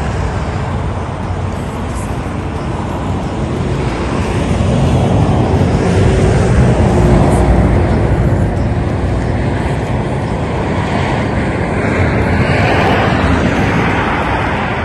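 Road traffic: the steady rush of vehicles' tyres and engines, swelling twice as cars pass and fading between them.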